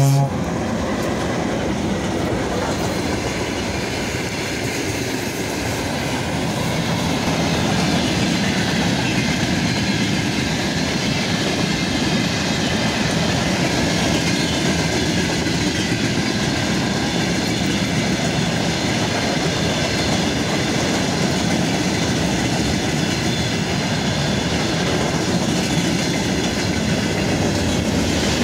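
A long freight train hauled by a VL80T electric locomotive rolls past, with a steady rumble and clatter of its wagon wheels on the rails. It grows a little louder several seconds in and then holds.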